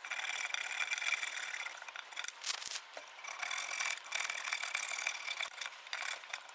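Hand saw cutting off the protruding end of a glued wooden dowel, its teeth rasping through the wood in uneven strokes.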